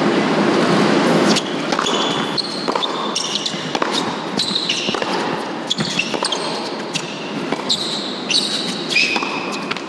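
A tennis rally on an indoor hard court: sharp racket-on-ball strikes and bounces, with many short high sneaker squeaks on the court surface. A crowd murmur drops away about a second and a half in.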